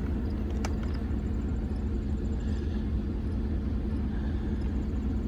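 Steady low rumble of outdoor background noise, with faint, high, repeated chirping and a single brief click about a second in.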